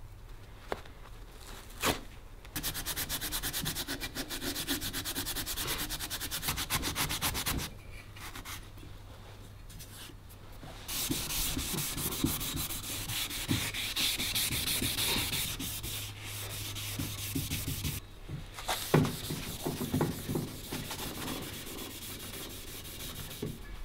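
A red abrasive pad scrubbing the cast-iron body of a Stanley Bedrock No. 608 plane, rubbing back and forth in three bouts with short pauses between. The first bout has fast, even strokes. A couple of sharp knocks come partway through the last.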